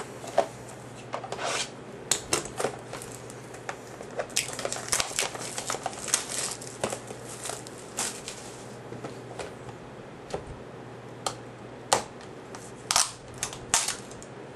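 Plastic wrapping and packaging of a sealed trading-card box crinkling and tearing as the box is opened by hand, with irregular sharp crackles and clicks. The crinkling is densest in the middle stretch.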